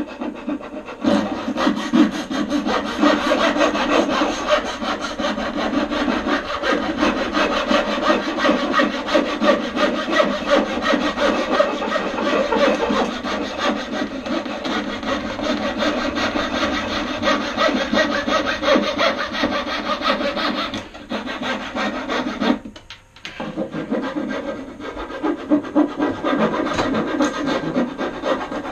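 Hand tool cutting into wood with fast, continuous back-and-forth strokes, relieving a spot where bolt heads rub. The strokes stop for about two seconds some twenty seconds in, then start again.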